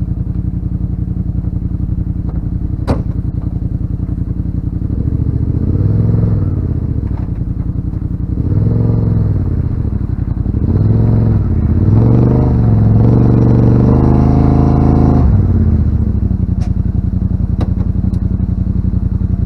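Yamaha RMAX 1000's parallel-twin engine idling, then revving up and back down about three times from about five seconds in, and held at higher revs for a few seconds before dropping back to idle. A sharp click about three seconds in.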